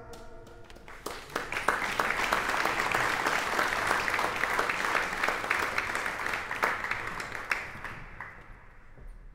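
Audience applauding: the clapping starts about a second in, holds, then fades away near the end.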